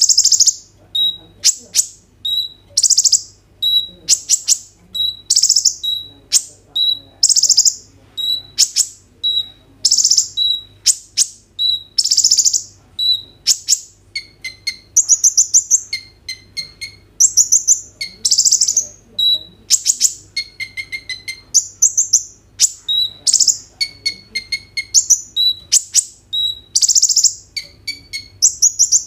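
Kolibri ninja (Van Hasselt's sunbird) singing continuously. At first it repeats a short high phrase about once a second, each a brief note followed by a sharp, higher burst. About halfway it turns to a quicker, varied run of chattering trills with some lower notes mixed in.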